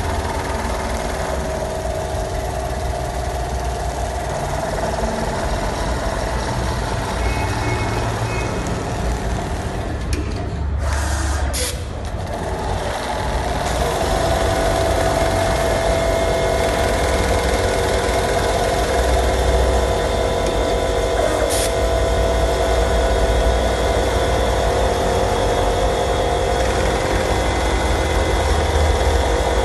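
Automatic sewing machine running steadily, a continuous mechanical hum with low rumble. There is a brief break about a third of the way in, a steadier hum after it, and a single click later on.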